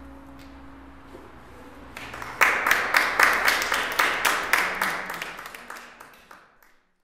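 The last note of the song ringing away, then an audience applauding from about two seconds in. The clapping fades out near the end.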